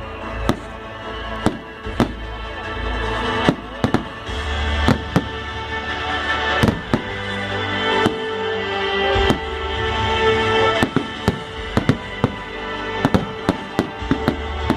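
Many sharp bangs and cracks at irregular intervals, crowding together near the end, over music with held notes.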